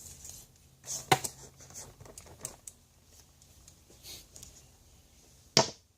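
Clicks and light taps of small metal hand tools being handled, with a sharp click about a second in and another near the end.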